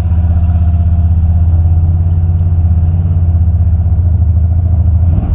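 Buick 455 Stage 1 big-block V8 running at a steady speed with an even, rapid exhaust pulse. Its Holley 950 carburetor's four idle mixture screws have been readjusted, which the owner says has left the air-fuel mixture wrong.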